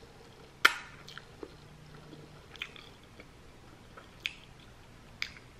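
Wet mouth smacks from licking sauce off fingers and chewing: a handful of short, sharp smacks spread over several seconds, the first, about half a second in, the loudest.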